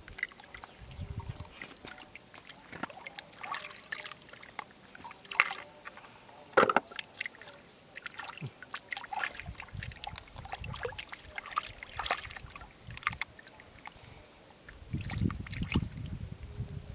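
Hands digging through wet mud and shallow water: mud squelching, water sloshing and trickling, with many small clicks and scrapes as clam shells are handled. The strongest is one sharp crack about two-thirds of the way in, and heavier squelching and sloshing come near the end.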